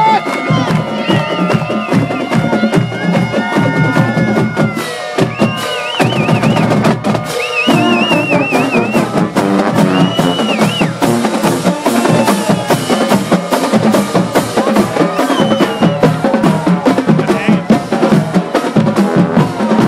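Marching band playing: snare drums, bass drum and crash cymbals keep a fast, steady beat under sousaphones and saxophones.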